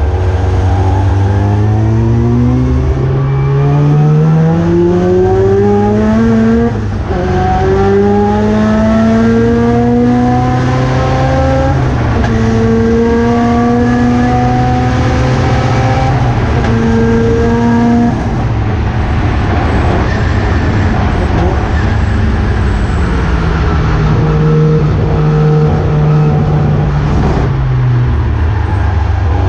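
Race car engine accelerating hard, its pitch climbing through upshifts with breaks about 7 and 12 seconds in. After about 18 seconds the note falls lower and holds steady, then drops and climbs again near the end.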